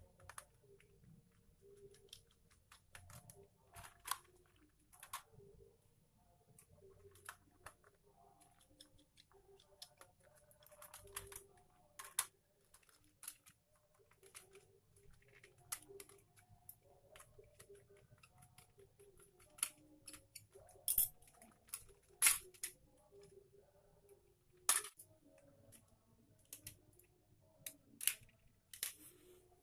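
Irregular small clicks, taps and snaps of hand work on small parts, with a few sharper snaps in the second half.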